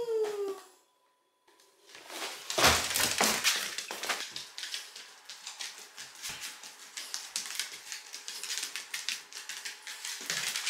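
Shiba Inu's claws clicking and scrabbling rapidly on a hardwood floor as the dog dances around, with rubbing and patting mixed in. A brief falling squeak fades out in the first half-second.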